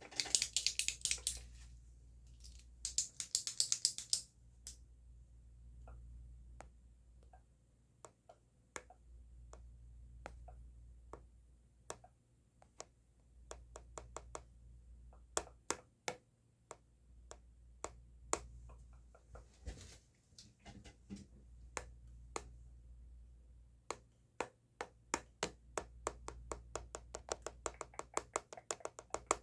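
A pen being handled to make sharp clicks and ticks. There are two fast rattling runs in the first four seconds, then separate clicks spaced out, and quicker runs of clicks near the end.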